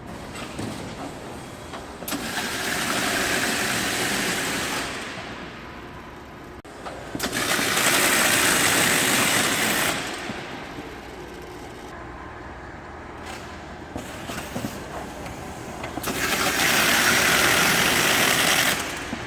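Automatic hammer-type carton taping machine running, with three roughly three-second rushes of hissing noise as boxes pass through and are sealed with tape.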